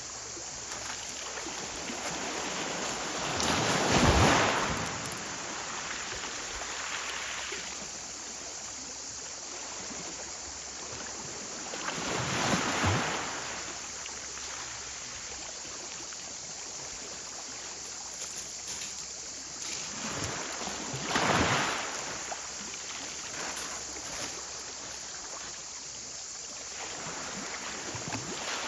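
Sea waves breaking on the shore over a steady wash of surf, with a wave swelling and crashing about every eight or nine seconds; the first, about four seconds in, is the loudest.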